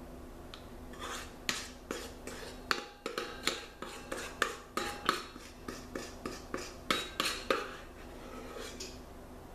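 Metal ice cream scoop clinking and scraping against a stainless steel mixing bowl while scooping batter out: a quick run of about twenty clinks, with the bowl ringing briefly partway through.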